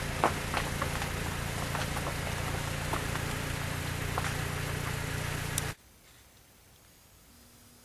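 Steady rain hiss with scattered drips and ticks over a low, steady hum, cutting off suddenly about two-thirds of the way in to near-quiet woods.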